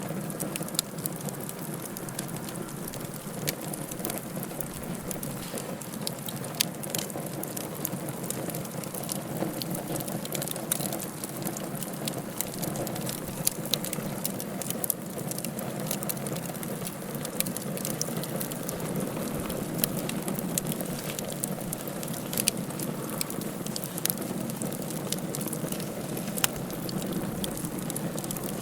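Wood fire burning in a fireplace: a steady hiss and rumble of flames with frequent irregular crackles and sharp pops from the burning logs.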